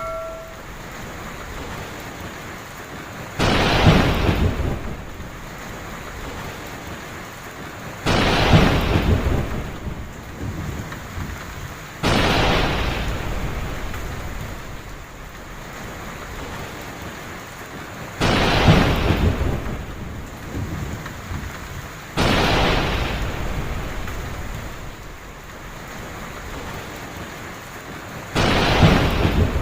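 Heavy rain falling steadily, with thunder cracking and rumbling six times, each clap starting suddenly and dying away over a few seconds.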